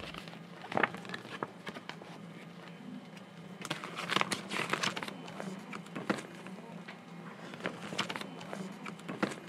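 Paper rustling and crinkling in short bursts as an envelope is handled and opened and the sheet inside unfolded, busiest about four to five seconds in, over a faint steady low hum.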